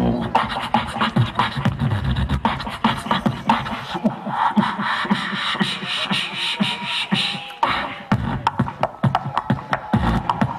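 Live beatboxing into a handheld microphone, amplified through a stage sound system: fast, rhythmic mouth-made kick drums, snares and clicks. About four seconds in, the deep kicks drop out for a few seconds while the higher sounds carry on, then the kicks return.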